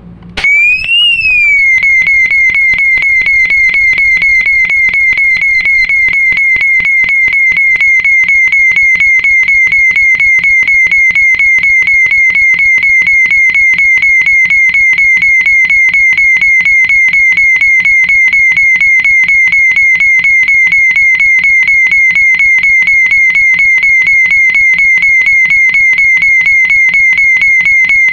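Fire alarm horn/strobe sounding: a loud, high, rapidly pulsing tone. It starts abruptly, rises and falls in pitch briefly about a second in, then holds steady.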